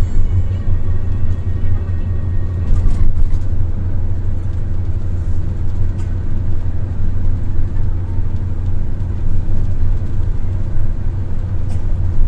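Steady low rumble of a bus cruising at highway speed, engine and road noise heard inside the cabin.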